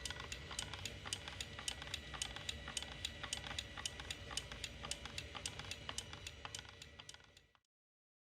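A small mechanism ticking rapidly, about four or five ticks a second, over a steady high whine and a low hum. It cuts off suddenly near the end.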